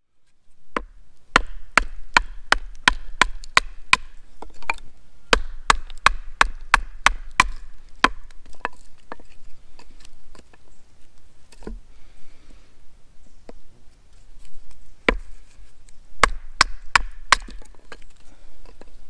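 A wooden baton strikes the spine of a bushcraft knife to split short green sticks on a stump. There are runs of sharp knocks, about three a second, with a long pause in the middle and a second burst of knocks near the end.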